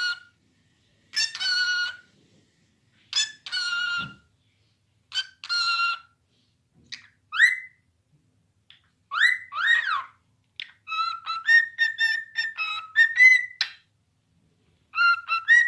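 A parrot calling and whistling: short calls about every two seconds, then a few rising whistles, then a quick run of short whistled notes.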